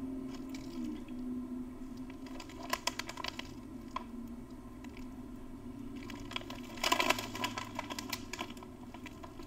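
Plastic snack wrappers crinkling as they are handled, in two bouts of crackling: a shorter one about three seconds in and a louder one about seven seconds in.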